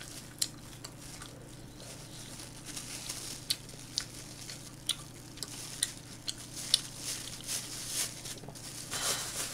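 Small plastic pouch of pickled radish being torn and worked open by hand: scattered faint crinkles and sharp little clicks of plastic.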